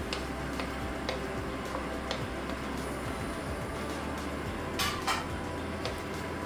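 Wooden spatula stirring chicken pieces in tomato sauce in a metal wok: scattered taps and scrapes of wood against the pan, with two louder knocks about five seconds in, over a steady low hum.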